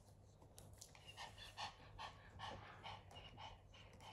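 A dog whining in a run of short, high whimpers, about two a second, starting about a second in and faint. The owner takes the whining to mean she is upset that the kittens won't lie with her.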